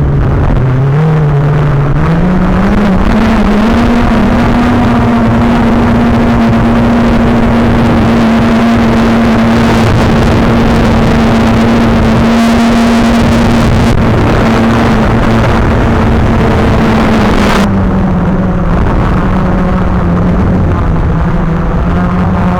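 Multirotor drone's electric motors and propellers humming. The pitch rises over the first few seconds, then holds steady with a strong hiss. Near the end the hiss cuts off suddenly and the pitch drops a little as the throttle eases.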